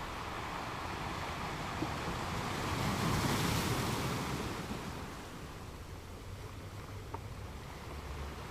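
Ocean surf: a wave swells to a rushing wash about three seconds in, then recedes to a softer steady hiss.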